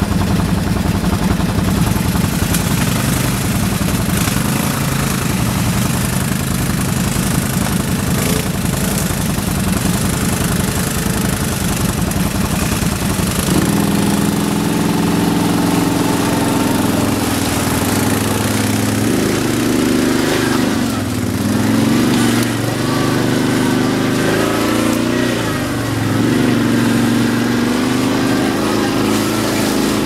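ATV (quad bike) engine running steadily at idle, then pulling away about halfway through, its note rising and falling with the throttle as it rides.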